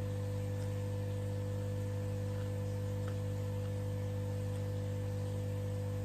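Steady electrical hum with a hiss over it, unchanging throughout, with a few faint small ticks.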